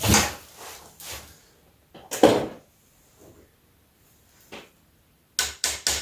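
Two loud clunks of metal tools and parts being handled, about two seconds apart, then from about five seconds in a fast, even run of sharp clicks, about four a second, from a ratchet wrench being worked on a bolt of the rear main seal flange.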